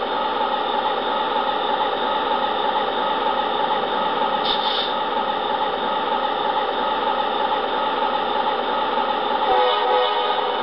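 MTH Amtrak Genesis model diesel locomotive's onboard sound system playing a steady diesel engine idle through its small speaker, with the locomotive standing still. A short high-pitched sound comes in about four and a half seconds in.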